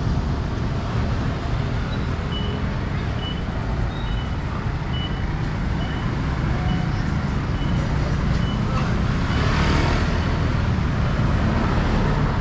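Motor vehicle engines running in street traffic, a steady low rumble. For several seconds a short high beep repeats about twice a second, then stops. A louder rush of noise comes about ten seconds in.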